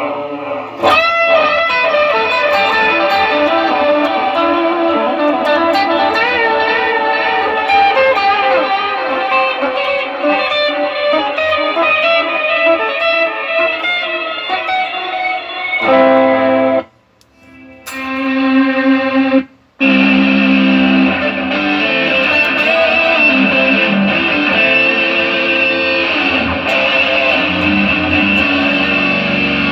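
Electric guitar played through a Fractal Audio FM3 amp modeler being sound-tested after its power supply board was replaced. It plays single-note lines with string bends, then sustained chords. The sound cuts out abruptly twice, briefly, a little past halfway.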